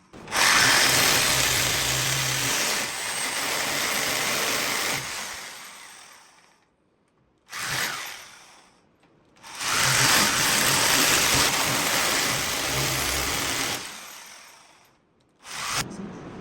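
Electric drill boring holes in the wall for bathroom accessory fittings: two long runs of about five to six seconds and a short burst between them, each winding down as the trigger is released.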